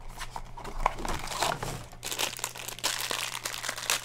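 Crinkling and crackling of a mystery-mini blind box's packaging being torn open by hand, a dense run of small crackles that gets busier about halfway through.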